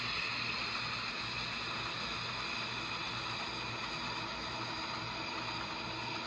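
Steady rumble and hiss of a train in motion, heard from aboard a Santa Fe (ATSF) caboose, with a low pulsing drone beneath.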